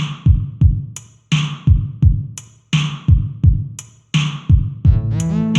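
Instrumental music: a drum beat plays alone, then a sustained chord of low notes comes in about five seconds in.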